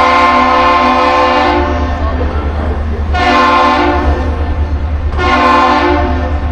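Deep ship-salute horn sounding the long-short-short salute: a long blast ends about a second and a half in, then two shorter blasts follow. A steady low rumble runs underneath.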